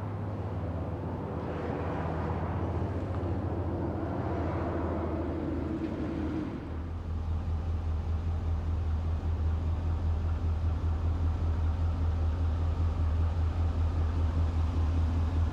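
Isuzu NPR's 6.0L Vortec gas V8 idling steadily. A rushing noise lies over it for the first six seconds, and about seven seconds in the idle gets louder and pulses more plainly, heard from inside the cab.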